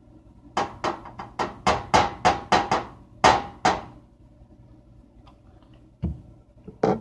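A quick run of about a dozen sharp knocks and crackles as kitchen items and food packaging are handled, spread over about three seconds, then two more near the end.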